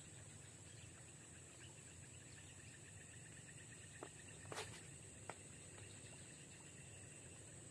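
Faint, steady high-pitched drone of swamp insects. About halfway through, a short swish with a couple of small clicks as a fishing rod is cast and the reel engages.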